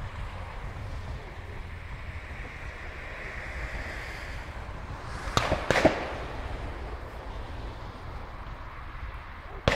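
FSC Żuk van's exhaust backfiring: a quick cluster of sharp bangs about five and a half seconds in, and another single bang at the very end, over a low rumble of road traffic.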